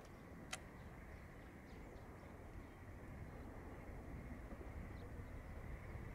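Steady low outdoor noise, wind rumbling on the microphone, with a single sharp click about half a second in and a few faint bird chirps.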